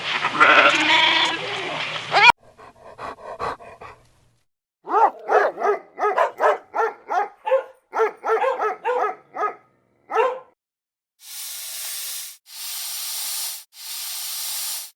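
A string of animal calls: a bleating call that breaks off, a run of about a dozen quick, sharp yelping barks, then three long hisses.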